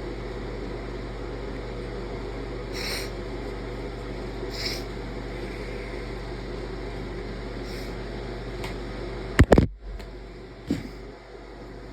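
A person's induced sneeze: a few short breathy intakes of breath, then a sudden loud sneeze burst about nine and a half seconds in, and a smaller burst about a second later. A steady hum runs underneath.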